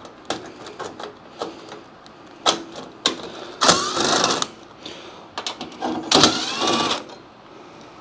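Cordless drill backing sheet-metal screws out of the control-board carrier in an air handler's steel cabinet: two short runs of motor whine, each rising in pitch, about halfway through and again two seconds later, among light clicks and taps of metal.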